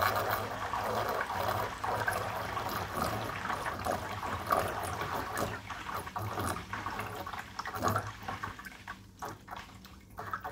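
Water gurgling and splashing in an aquarium overflow box as the Bean Animal siphon drain primes, air still being pushed out of the pipe. The gurgling thins out and grows quieter about eight seconds in as the siphon runs full, over a steady low hum.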